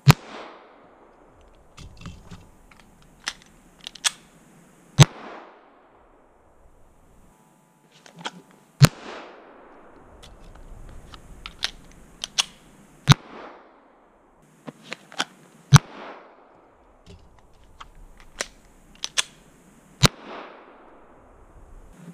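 Springfield XD9 9mm pistol being fired, about six single shots a few seconds apart, each trailing off in an echo. Lighter clicks and knocks fall between the shots.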